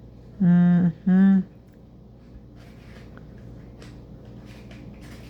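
A voice hums two short notes at a steady pitch. Then come faint scattered clicks of a Rubik's cube being twisted.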